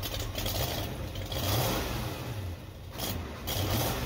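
Ford 5.0 small-block V8 running with a low, lumpy idle ("wop, bop, bop, bop"), rising in speed twice. The slow, lopey running is what the owners take for a performance cam in the engine.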